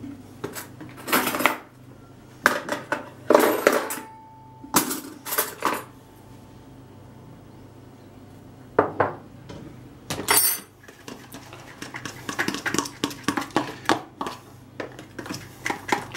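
Metal spoon clinking and scraping in a plastic tub of egg, flour and honey batter: scattered knocks and clinks for the first few seconds, a lull, then a quick, busy run of scraping clicks as the spoon stirs the added flour into the batter in the last four or five seconds.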